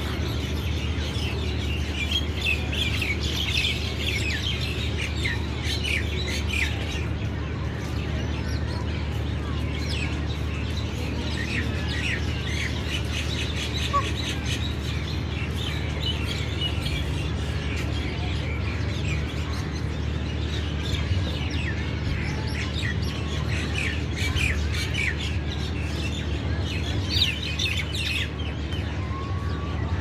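Many small birds chirping and twittering together in a dense chorus of short, high calls. The chorus is thickest at the start and again near the end, over a steady low hum.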